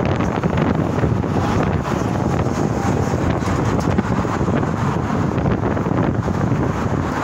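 Loud, steady wind buffeting on the phone's microphone, a rumbling noise with no pitch to it.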